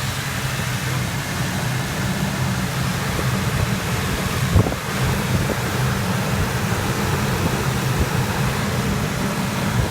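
2003 Ford F-150 engine idling steadily after the no-start fix, with a steady rushing noise over it. There is one brief knock about four and a half seconds in.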